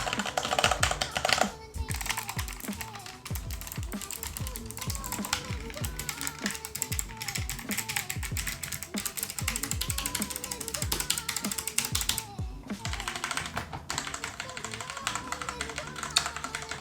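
Fast typing on a mechanical keyboard: a steady stream of key clicks and clacks, pausing briefly twice.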